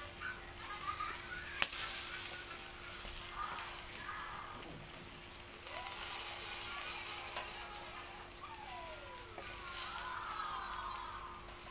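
Chicken-heart skewers sizzling over glowing charcoal on a wire grill rack, a steady crackling hiss. A few sharp clicks come as the skewers are turned on the metal grate.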